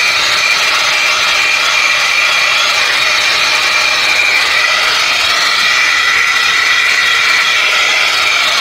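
Portable 12-volt car vacuum cleaner running steadily with its nozzle fitted, a loud high-pitched motor whine with a hiss of air, shifting slightly in pitch as it sucks up dirt.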